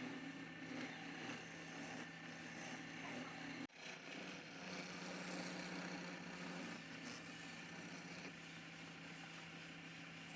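Wood lathe running, its electric motor giving a steady hum. The sound cuts off sharply for an instant about four seconds in, then the hum carries on.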